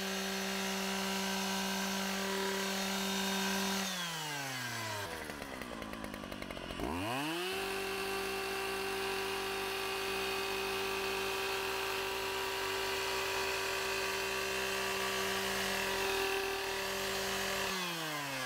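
Post-hole auger drilling fence-post holes: it runs at a steady high pitch, spins down to a stop about four seconds in, spins back up about three seconds later, and winds down again near the end.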